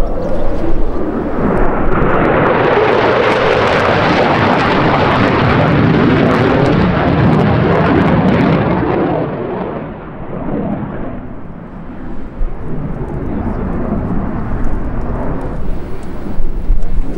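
Jet noise from an F-15C's twin Pratt & Whitney F100 turbofans as the fighter flies past. The broad rush swells about a second in, holds loud for several seconds, then fades about ten seconds in to a lower, distant rumble.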